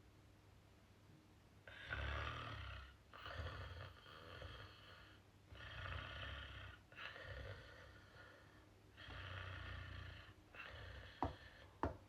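A woman snoring softly, a run of noisy breaths following one another with short pauses from about two seconds in. Two sharp clicks near the end.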